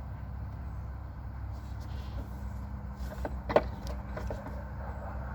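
A few sharp plastic clicks and taps about three and a half seconds in, from handling the brake light's wire harness connector, over a steady low background rumble.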